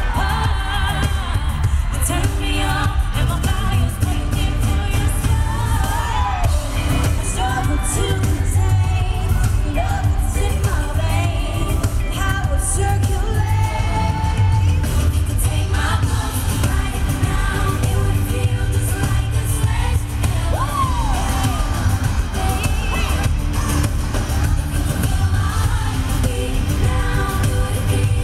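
Live pop concert: female singers with a band, a heavy bass pulse underneath, picked up from the crowd with the bass loudest in the mix.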